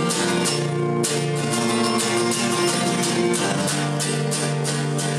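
Steel-string acoustic guitar strummed in a steady rhythm, a few strums a second, in an instrumental passage between sung lines.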